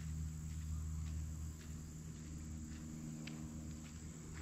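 Outdoor ambience: a steady low hum under a faint hiss, with a few faint scattered ticks.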